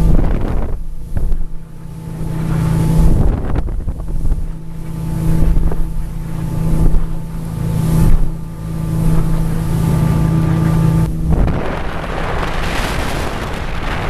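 Motorboat engine running steadily at cruising speed, a constant hum, mixed with wind buffeting the microphone and water rushing past the hull. About three seconds before the end the engine's hum is swamped by a louder rush of wind and spray.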